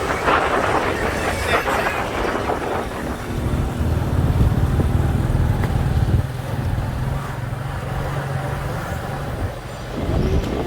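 A road vehicle driving along a highway: road and wind noise at first, then a steady low engine drone holding an even pitch from about three seconds in.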